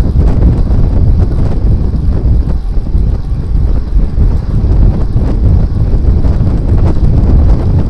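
Wind buffeting the microphone of a rear-facing Fly6 camera-light on a moving road bike: a loud, steady, low rumble, with faint small clicks here and there.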